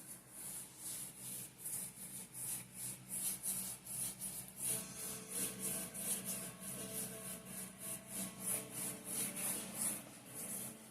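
Varnish brush stroking back and forth over an oil-on-canvas painting: a rhythmic brushing hiss of about three strokes a second. Soft background music comes in about halfway through.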